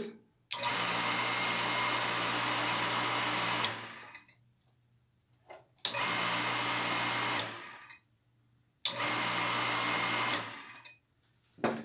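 Foset half-horsepower electric water pump switched on and off three times: each time its motor starts at once with a steady hum, runs for about three seconds the first time and under two seconds the next two, then winds down when cut off. The pump is running dry, not connected to any water line.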